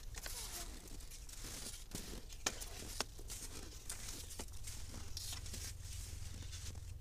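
Faint crackling and scattered clicks of cross-country skis and poles on snow, over a steady low wind rumble on the microphone. The two sharpest clicks come about two and a half and three seconds in.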